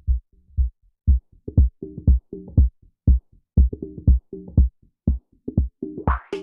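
Electronic drum-machine groove with deep kick thumps and short, punchy pitched synth notes in a steady rhythm, played through the Softube Model 72 Minimoog-style software synth. Brighter hissing cymbal-like hits join near the end.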